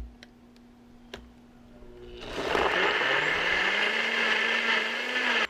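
A bullet-style personal blender: a click as its cup is set onto the base, then from about two seconds in the motor runs loud, its hum rising in pitch as it spins up while it blends cucumber, jalapeño and lime into a sauce. It cuts off suddenly at the end.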